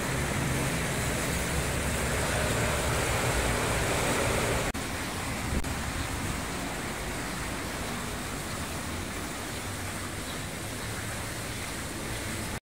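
Steady city street traffic noise. It drops slightly at an abrupt cut about a third of the way through.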